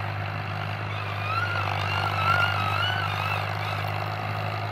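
Diesel tractor engine running with a steady low drone. From about a second in, a wavering high whistle-like tone rides over it for a couple of seconds.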